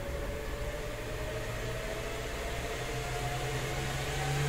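Defective GeForce GTX 1080 graphics card mining under load, extremely loud: a steady rush of fan noise over a low hum, with a whine that climbs slowly in pitch and levels off near the end.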